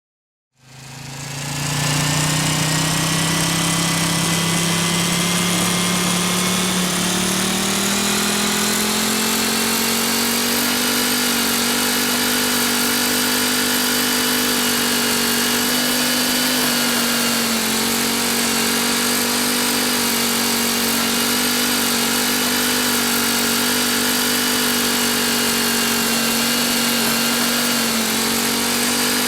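An engine or motor running: it fades in from silence, rises in pitch over the first several seconds, then holds a steady, even hum.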